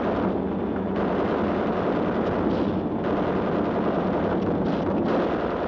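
Dense, continuous rapid machine-gun fire mixed with blasts, a newsreel sound effect for aircraft guns. It cuts off suddenly near the end.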